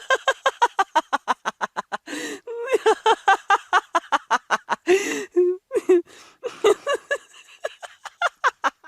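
A woman laughing hard in long runs of rapid "ha-ha" pulses, about seven a second, broken by short gasping in-breaths about two seconds in and again around five seconds.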